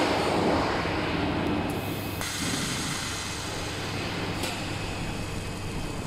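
Electric arc welding on a stainless steel water-heater tank shell: the arc's steady hiss sets in about two seconds in, over constant factory machinery noise.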